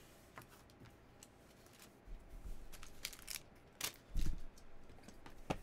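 Faint handling of trading-card packs: scattered clicks and crinkles of plastic and foil wrappers, with a soft thump about four seconds in.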